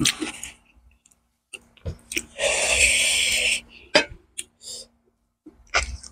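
Close-miked eating sounds: wet mouth clicks and smacks while chewing rice and curry eaten by hand, with a hissing sound about a second long near the middle.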